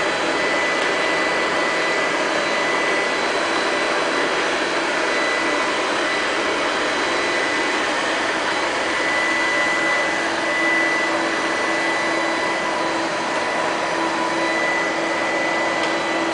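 Robot vacuum cleaners running: a steady motor whir with a thin, high, steady whine, and a lower hum that grows stronger about ten seconds in.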